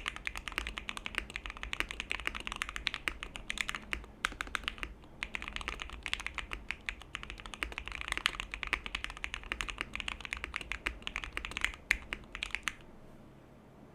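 Fast, continuous typing on a Tofu65 custom mechanical keyboard with lubed Gateron Black Box Ink linear switches, a polycarbonate plate, PE and case foam, and Akko Retro Cherry keycaps. The typing slows briefly about four seconds in and stops about a second before the end.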